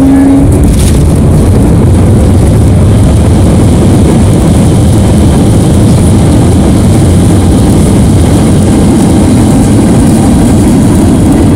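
Loud, steady low rumble heard inside the cabin of an Airbus A321neo during its landing rollout on the runway, from the engines and the aircraft rolling at speed.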